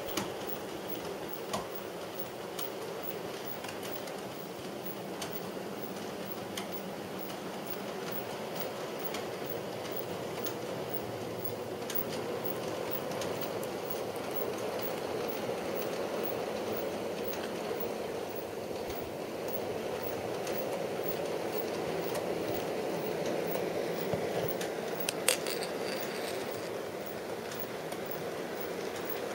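OO gauge model diesel locomotive hauling a long train of hopper wagons: a steady motor hum with light clicking of wheels over the rail joints, getting a little louder as the train comes closer. One sharp click near the end.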